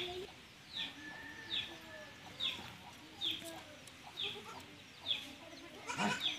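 A bird calling in the yard: a short, high, falling note repeated steadily about once every 0.8 seconds. There are faint lower clucking-like sounds under it, and a brief noisy burst near the end.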